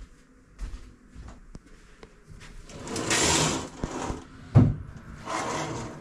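The room's window being slid open: two long sliding scrapes with a sharp knock between them.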